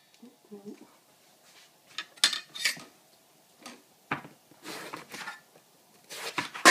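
Chef's knife and eggplant knocking on a plastic cutting board, a handful of irregular knocks and taps, then the knife cutting through the eggplant onto the board near the end.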